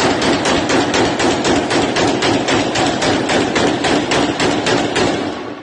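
Automatic gunfire: a long, continuous string of rapid shots fired in celebration, dying away near the end.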